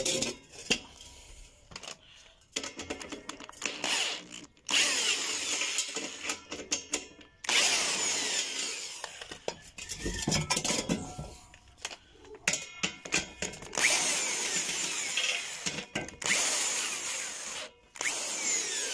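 Black+Decker power drill with a socket backing out the bolts that hold the plate on a Maytag washer transmission, running in several runs of a few seconds each with short pauses between, its speed rising and falling.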